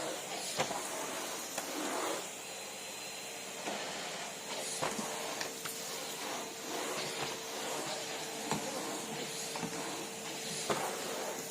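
Numatic Henry cylinder vacuum cleaner running with a steady airy hiss and a faint steady whine, with scattered knocks and clicks.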